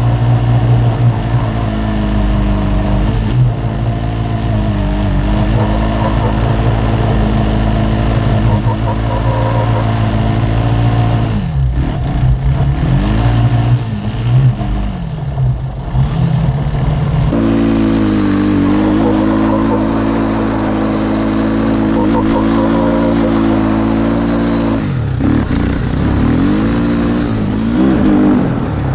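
Go-kart's small engine running at a steady speed under throttle. About twelve seconds in, the revs fall and climb back several times over a few seconds before holding steady again, with another drop and rise near the end.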